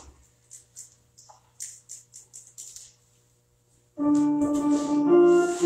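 Church organ starts playing loud sustained chords about four seconds in, moving to a new chord a second later. Before it come only a few faint soft clicks and rustles.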